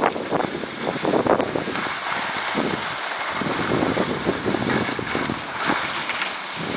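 Wind buffeting the microphone of a camera moving down a ski slope, mixed with the hiss and scrape of skis sliding on snow.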